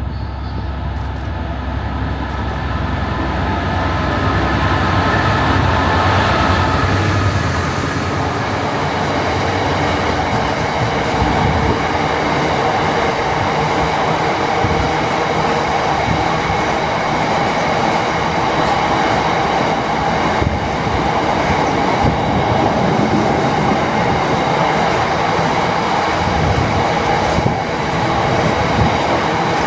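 Diesel train running through the station at close range, loud and continuous: a low engine rumble for the first several seconds, then a steady drone of engine and wheels.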